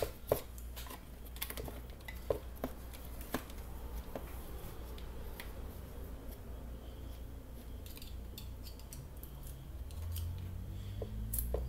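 Small metal clicks and scrapes of a screwdriver prying and working at a stuck carbon-brush holder inside a Bosch GSB 20-2 drill, over a low steady hum. The clicks come thick in the first few seconds, then sparser. The holder won't come free because the brush has stuck inside it.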